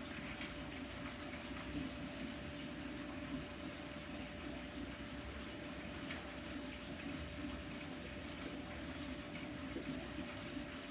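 Aquarium filter running: water splashing and trickling steadily into the tank, with a faint steady hum under it.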